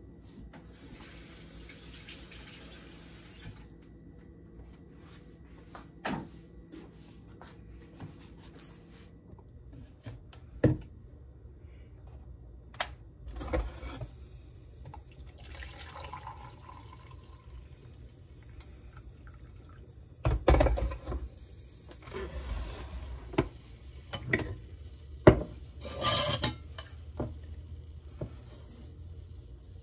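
Household handling sounds in a small room: a short hiss like running tap water near the start, then scattered knocks and clatter, like dishes and cupboard items being set down.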